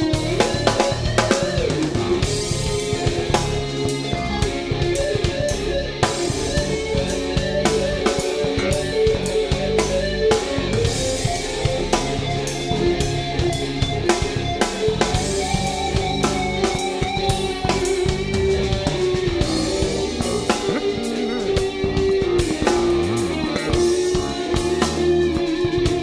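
Instrumental band recording: a drum kit keeps a steady beat under long held melody notes, with guitar, bass and keyboards.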